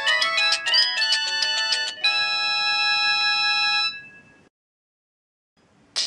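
Samsung GT-E1150 phone's built-in polyphonic ringtone playing through its loudspeaker: a quick run of synthesised notes that ends about two seconds in on a held chord, which fades out by about four seconds. After a short silence the next ringtone starts at the very end.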